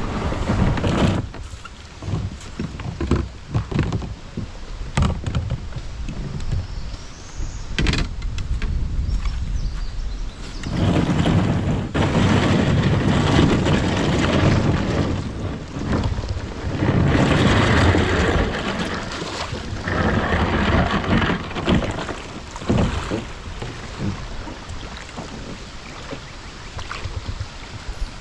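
A kayak being paddled on a river: scattered knocks of the paddle and gear against the hull, with water splashing and rushing that swells louder for stretches in the middle.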